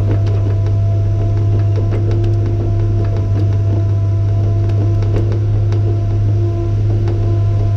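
Garbage truck's engine running at a steady pitch with a low hum while the truck drives along, with light rattling clicks.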